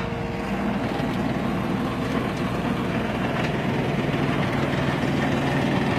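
Engine of a small earthmoving machine running steadily at a constant speed, with a steady low hum coming in about halfway through.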